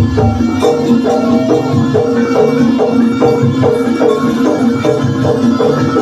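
East Javanese jaranan gamelan music playing: drum strokes under a fast, repeating melody of pitched percussion notes.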